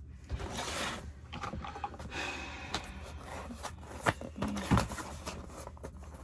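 Packaging being handled and opened: rustling bursts with a few sharp clicks and knocks about four to five seconds in.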